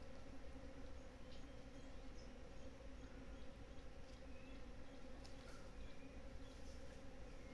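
Many bees, honey bees and native stingless bees, buzzing together at a flowering mutambo tree: a steady, faint, even hum. A few faint short bird chirps come through above it.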